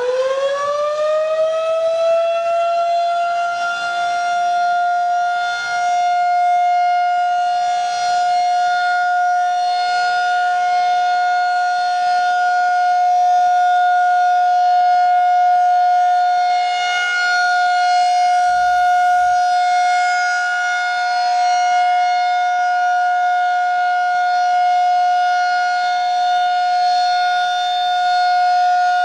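Federal Signal 2001-SRN outdoor warning siren sounding its steady alert test tone. It finishes winding up in the first few seconds, its pitch climbing and then levelling off, and holds one loud, steady tone with slight swells in loudness.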